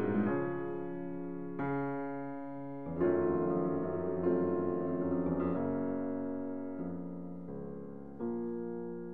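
Background music: piano chords, a new chord struck about every second and a half and left to ring and fade.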